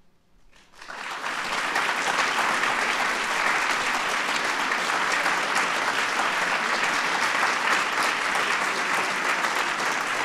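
Audience applauding. After a near-silent first second the clapping builds quickly and then holds steady as a dense spread of many hands.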